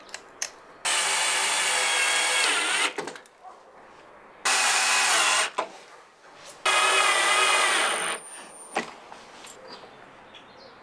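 Bosch cordless drill-driver driving screws into wood in three bursts of steady motor whine, about two seconds, one second and one and a half seconds long. The first drops in pitch just before it stops. A few light clicks fall between the bursts.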